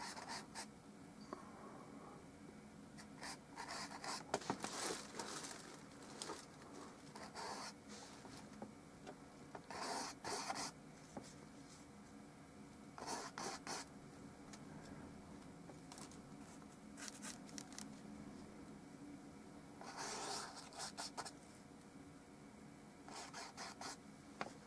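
Paintbrush dragging and rubbing across a stretched canvas, faint brushing strokes coming in short clusters every few seconds, over a low steady hum.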